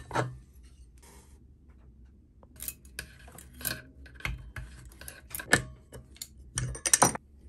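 Sharp metal clicks and clinks of hand tools on an old Stihl chainsaw's clutch side as the sprocket cover and clutch are taken off. The taps come scattered after a quiet first couple of seconds.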